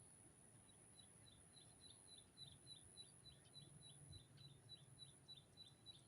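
Faint bird call: a fast series of short, high notes, each dropping in pitch, about four or five a second, starting about a second in. A thin, steady high tone sits underneath.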